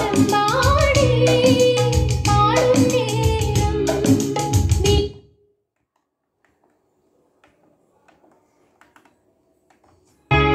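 A song with female singing playing through the Nakamichi RE-10 stereo receiver's speakers cuts off abruptly about five seconds in as the input selector is switched. A few faint clicks follow, and a different piece of music starts near the end once the CD input is selected.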